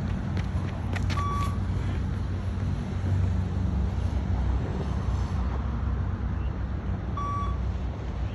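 Two short electronic beeps from a beep-test (20 m shuttle run) recording, about six seconds apart. Each beep marks the time to reach the line at level 7. A steady low rumble runs underneath.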